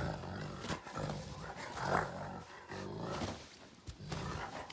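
Wolf dog grumbling in a string of low growls with short breaks between them.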